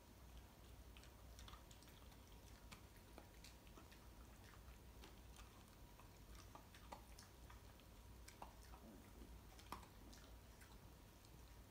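Faint, irregular crunching of a Shiba Inu chewing dry kibble, small sharp clicks about twice a second over a low hum.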